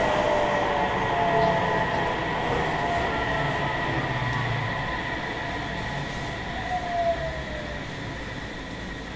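Running sound inside a Sendai Subway 1000N series car as the train slows. The motor whine glides down in pitch and the rumble of the wheels gradually fades.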